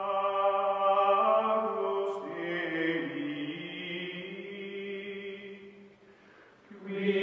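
Slow chant-like music of long held voices. The chord shifts about two seconds in, fades out near the end, and a new held chord comes in just before the end.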